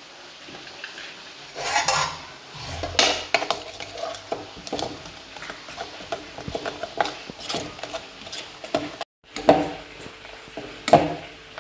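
Metal cooking utensils clattering and scraping against pots and pans, with a few louder clanks.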